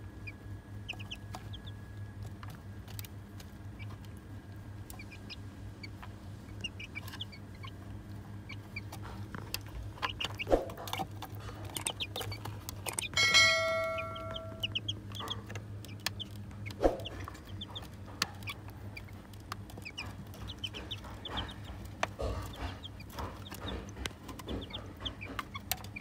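Young chicks peeping and chirping while feeding, with scattered sharp taps that fit beaks pecking on the plastic feeder. One louder, longer held call about halfway through stands out over a low steady hum.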